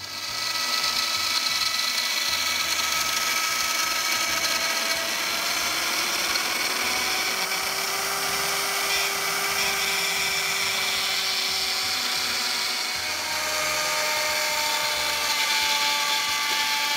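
Porter-Cable router spindle on a CNC router, its end mill cutting a slot in aluminium plate: a steady high-pitched whine over a hiss, with a few pitched tones that shift slightly as the cut goes on.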